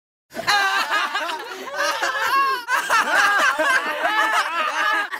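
Several teenage boys laughing hard together, their laughter overlapping.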